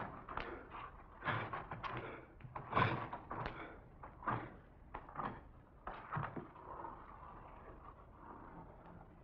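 Bare feet stepping on a stage floor: irregular knocks and thuds about every half second, which die away about seven seconds in and leave only a faint hiss.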